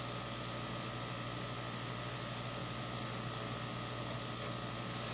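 Steady electrical hum with an even hiss from running machinery, unchanging throughout, with no distinct handling sounds standing out.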